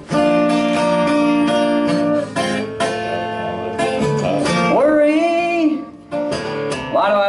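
Acoustic guitar strumming slow chords of a country ballad, each strum left ringing. Partway through, a man's voice holds a wavering sung note over the guitar.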